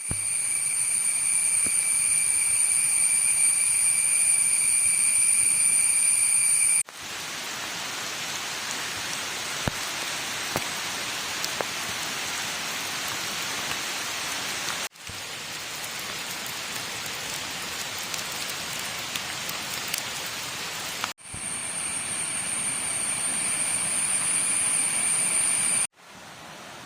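Monsoon rain falling steadily in a forest, with scattered drops ticking. For the first seven seconds and again near the end, a loud, steady, high-pitched shrill drone sits over the rain.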